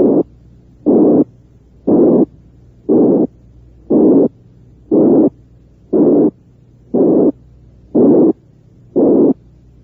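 A narrow band of white noise, band-pass filtered around 360 cycles per second by a heart-sound imitator, played in ten short pulses about one a second. This is an imitation of a high-pitched blowing heart murmur.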